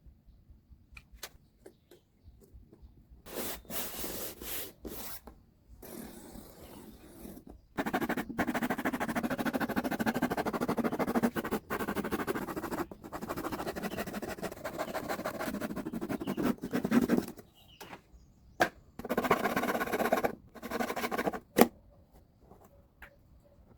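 Cardboard being worked by hand, scraping and rubbing in bursts, the longest running about nine seconds.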